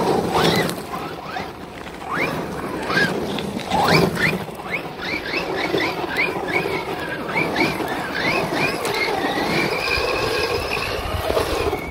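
JLB Cheetah brushless electric RC truck's motor whining in short rising bursts as the throttle is blipped, about two a second through the middle, then a longer held whine near the end, over the tyres scrabbling on gravel.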